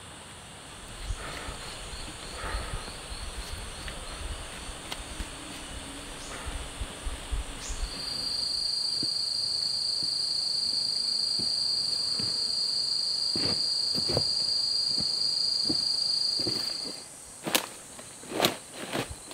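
An insect drones steadily on one high, unchanging pitch for about nine seconds, starting about eight seconds in and cutting off abruptly. Before it there is low rumbling with scattered light taps, and near the end a few sharp knocks.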